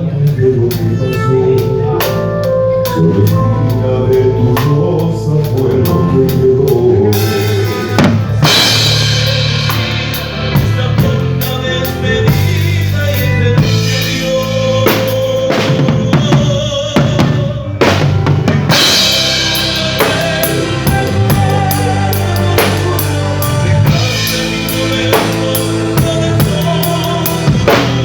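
Band playing through a PA at a sound check: drum kit with kick and snare over steady bass notes and other pitched instruments. The cymbals get heavier about eight seconds in, ease off, and come back in near nineteen seconds.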